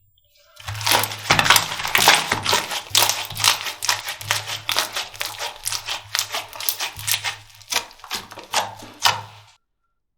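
Slime being squeezed and worked by hand, giving a dense run of sticky pops, clicks and crackles over a low steady hum, stopping about a second before the end.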